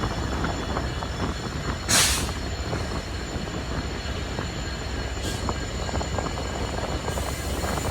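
Passenger train running, a steady rumble with rapid clattering of wheels over the track. A brief loud hiss comes about two seconds in.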